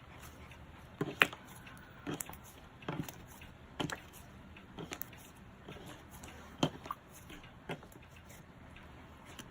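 Cloud-like cotton candy slime being squished and stretched by hand, giving irregular soft squishes with small clicks and pops about once a second.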